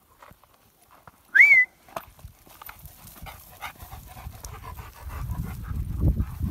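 A Greater Swiss Mountain Dog panting close by, with one short high note that rises and dips about a second and a half in. Rustling of movement through tall dry grass builds up near the end.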